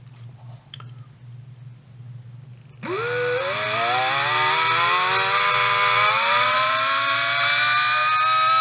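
Surpass Rocket V6 17.5T brushless motor spinning up under test at its factory timing of about 30 degrees. The whine starts about three seconds in and rises steadily in pitch as the motor accelerates toward full speed.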